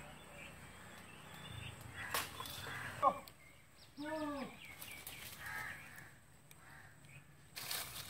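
A crow cawing twice about a second apart, the first call falling steeply and the second rising then falling. A sharp click comes just before the first call.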